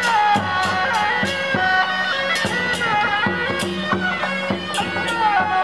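Taiwanese temple-procession music: a shrill reed-pipe melody sliding between notes over a steady low drone, punctuated by sharp percussion strikes.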